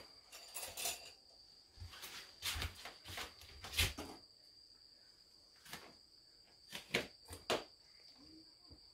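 Scattered light clicks and knocks of kitchen utensils and cookware being handled, about a dozen at uneven intervals, over a faint steady high-pitched tone.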